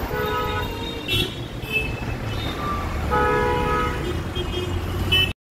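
Vehicle horns honking again and again in heavy city traffic over the rumble of engines: several horns of different pitch, with two longer blasts about a second long near the start and about three seconds in, and short toots between them.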